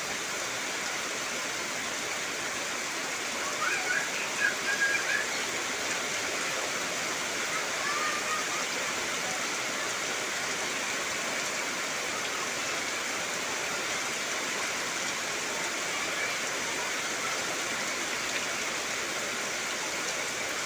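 Heavy rain falling on trees, a steady even hiss. A few brief high chirps cut through about four seconds in and again around eight seconds.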